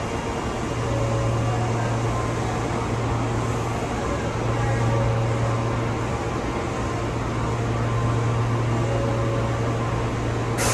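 Osaka Metro 23 series subway train standing at an underground platform with its doors open, its equipment giving a steady low hum over the station's ambient noise. Near the end a sudden hiss starts.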